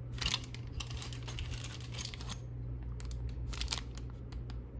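Plastic packaging crinkling in several short bursts as the bagged accessories of a keyboard are handled.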